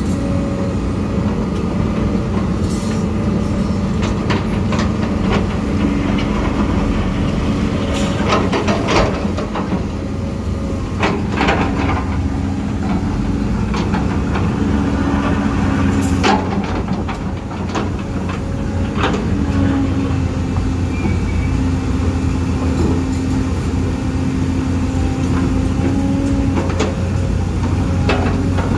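Huina 1550 RC excavator's electric motors whirring steadily while it digs sand, the pitch shifting as the motors change load. Sharp clacks of the bucket and stones come several times.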